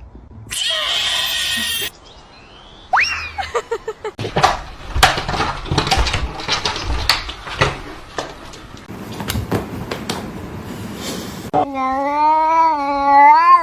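Domestic cats meowing and yowling across several short, abruptly cut clips. Near the end a long, wavering yowl is the loudest sound.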